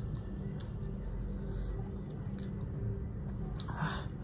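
A person chewing a mouthful of chow mein noodles close to the microphone, with soft mouth clicks, over a steady low hum.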